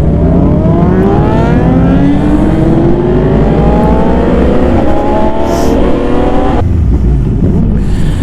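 Liter-class sport bike's inline-four engine accelerating hard in one long pull, the revs climbing steadily for about six and a half seconds before the throttle closes suddenly, over heavy wind rumble.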